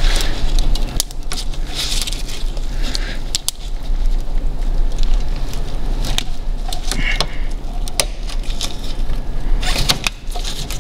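Irregular light metal clicks, taps and short scrapes as a parking brake cable and its collar are worked into the slotted hole of a Dodge Grand Caravan's rear brake caliper bracket and onto the handbrake arm.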